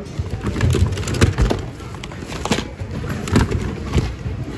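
Irregular knocks, clatter and rustling of hard plastic toys and household junk being shifted around by hand in a bin.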